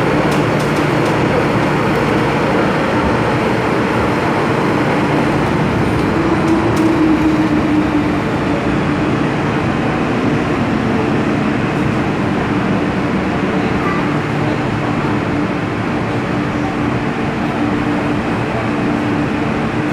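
Interior running noise of an MTR M-Train metro car, heard by a passenger door: a steady rumble with a motor hum that rises in pitch about six seconds in, then holds steady.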